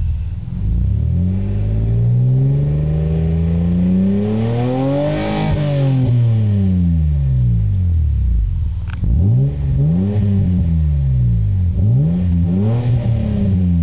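Acura Legend's V6 exhaust, through a catback system with a Skunk2 muffler, revved: one long rev that climbs and falls back around five seconds in, then two shorter blips near ten and thirteen seconds.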